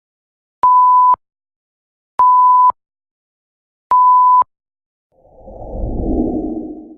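Three identical short electronic beeps on one steady pitch, about a second and a half apart, followed by a low rumbling whoosh that swells and fades over about two seconds.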